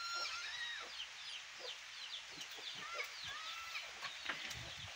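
A hen and her chicks calling: rapid, high, falling peeps from the chicks, mixed with a few longer, steadier calls, over the faint hiss of light rain.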